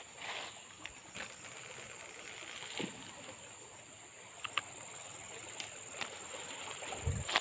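Quiet riverbank ambience: a steady high-pitched drone, with scattered small clicks and a couple of dull thumps near the end.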